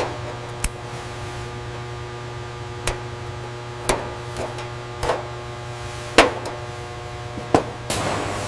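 Steady machine hum with a few held tones, punctuated by six sharp metallic clicks at irregular intervals of about a second.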